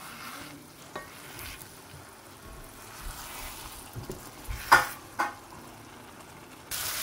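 A wooden spatula stirs and scrapes through egg stew in a non-stick frying pan while the tomato sauce sizzles. There are a couple of sharper scrapes a little past halfway. Near the end the sizzling suddenly becomes louder and steady.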